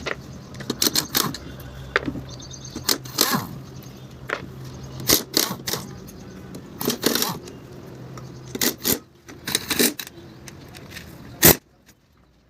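Irregular metallic clinks and knocks, like tools and metal parts being handled, over a low steady hum that stops about two-thirds of the way through. One loud knock near the end.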